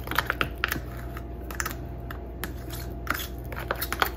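Table knife stirring peanut butter made from powder and water in a small plastic container: irregular clicks and scrapes of the blade against the plastic.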